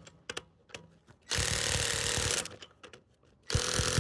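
Impact wrench hammering lug nuts tight in short bursts: one about a second in lasting about a second, another starting near the end, with a few light clicks in the quiet gaps between nuts.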